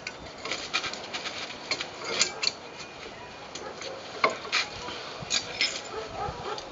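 Light, irregular metallic clinks and taps of brake pads and brake hardware being handled and fitted back, the sharpest about two and four seconds in.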